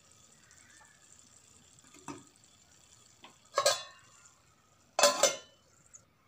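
Steel serving spoon working in a metal kadhai: faint scraping, then two loud metallic clanks with a short ring, about a second and a half apart, in the second half.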